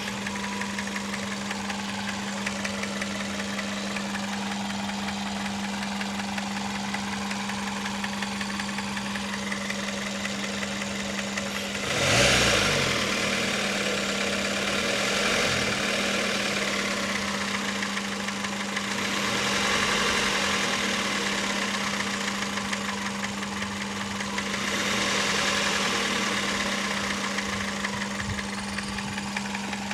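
Toyota Corolla 1.4 4ZZ-FE four-cylinder engine running warm, revved sharply about twelve seconds in and then brought up gently three more times. A steady low hum keeps the same pitch through the revs. The owner is asking about a noise the engine develops once it has warmed up.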